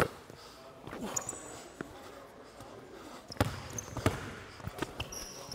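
Basketball being dribbled during a 1v1 game: several sharp bounces, the two loudest a little past the middle, with a few short high squeaks between them.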